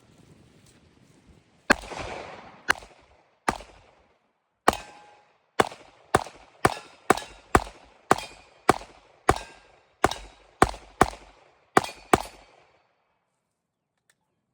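Glock 17 9mm pistol fired in a quick string of about seventeen shots, the first few about a second apart and the rest at about two a second, each shot trailing off in a short echo.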